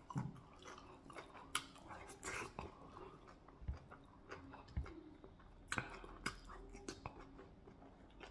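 Close mouth sounds of a person chewing soft fufu and soup with his mouth closed: scattered wet smacks and clicks.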